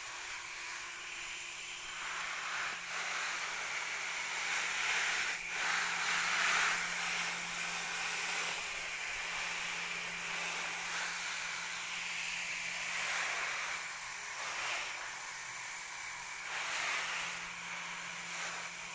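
Water spraying from a garden hose nozzle onto leafy plants: a steady hiss that swells and fades several times as the spray moves across the leaves, over a faint low steady hum.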